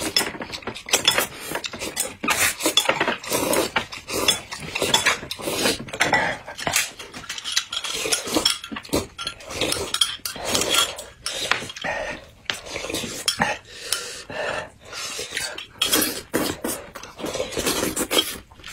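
Close-miked eating sounds from two people: slurping, chewing and sipping, with chopsticks, bowls and glass mugs clicking. It comes as an irregular run of short clicks and smacks.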